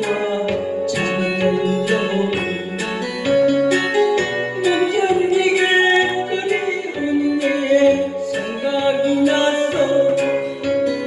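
A song playing: singing over a plucked-guitar accompaniment with a steady beat.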